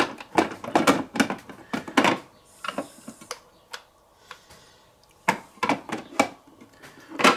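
Plastic clicks and knocks from handling an ice cream maker's motor unit, lifted off the bowl and set back on: a run of clatter in the first two seconds, a quieter stretch, then more knocks about five to six seconds in and one sharp knock at the end.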